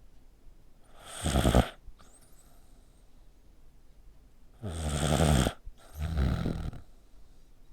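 A sleeping pet snoring like a person: three rough, rattling snores, a short one about a second in, then a longer one followed closely by another.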